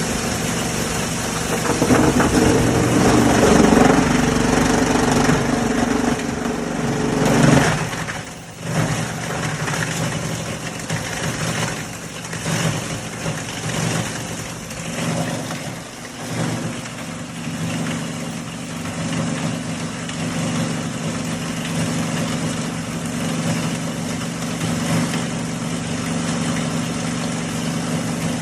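Ball & Jewel 25 hp open-rotor three-blade granulator grinding rigid plastic: heavy, dense chopping for about the first eight seconds, then it drops off suddenly and the rotor runs on with a steady hum and occasional clatter of smaller pieces.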